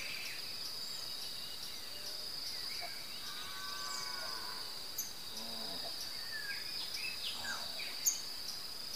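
Evening ambience: a steady high-pitched insect drone with scattered bird chirps, and a drawn-out animal call that rises and falls in pitch around the middle.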